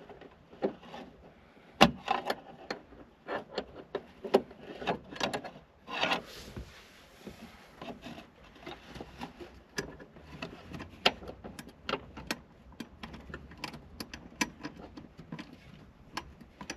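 Irregular metallic clicks, knocks and scrapes of hand tools working the accelerator pedal's stiff fixings, with one sharp knock about two seconds in and a longer scrape around six seconds.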